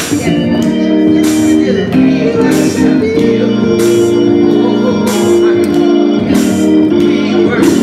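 Gospel music led by an organ holding sustained chords, with a sharp percussive hit about once a second.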